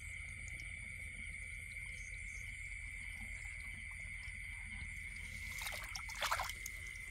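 Steady high-pitched trilling of night insects in flooded fields, with a brief splash and slosh of water about five and a half seconds in.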